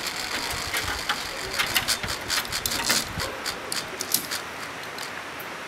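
Metal zipline gear clicking and clinking irregularly, busiest in the first three seconds and thinning out toward the end: carabiners, trolley and harness hardware being handled as a rider unclips to climb a platform ladder.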